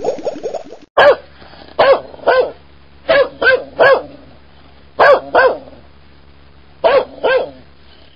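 A dog barking, about ten loud barks, mostly in pairs, with short pauses between. A different, rapidly repeating sound fills the first second before a cut.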